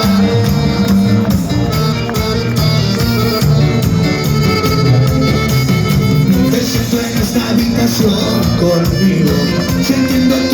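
Instrumental intro of a cuarteto song: Latin dance music with a steady beat and no singing.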